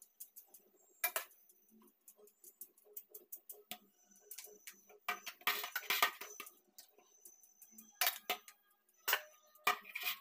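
Stainless-steel bowls and dishes clinking and knocking as they are scrubbed and rinsed by hand, some knocks leaving a short metallic ring. A stretch of water sloshing as a bowl is rinsed comes about five seconds in, and several louder clanks come near the end.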